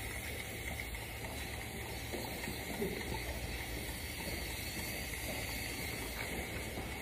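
A trigger spray bottle misting water onto hair in soft spritzes, faint over a steady background hiss.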